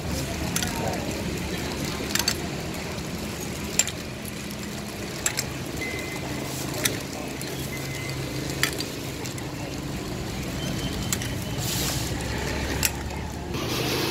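Ice cubes clinking sharply as they are scooped into a plastic bag, a click every second or so, over a steady hum of street traffic.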